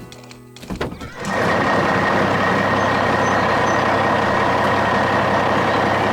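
A heavy truck's engine sound effect sets in suddenly about a second in and runs loud and steady, a dense rumbling noise with a thin high tone held over it.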